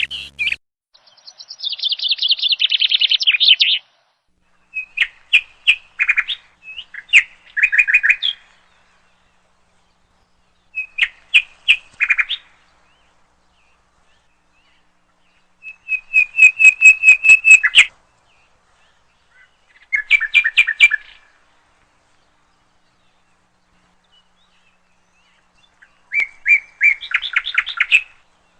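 A songbird singing in six separate phrases of fast trills and repeated chirps, with pauses of one to several seconds between them.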